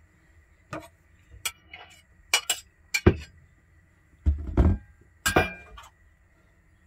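Crockery and cookware clinking and knocking as browned oxtail pieces are scraped off a plate with a utensil into a stainless steel pot: a string of separate clinks, with heavier knocks about three seconds in and twice more after four seconds.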